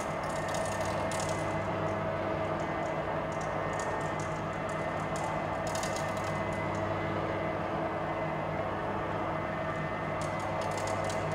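Steady hum of an empty sports hall: a low electrical buzz with a few higher held tones, and faint rattles now and then.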